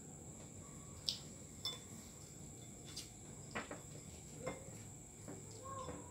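Spoons knocking and scraping in ceramic bowls as food is served and eaten: a handful of faint, light clicks spaced about a second apart, over a steady high-pitched whine.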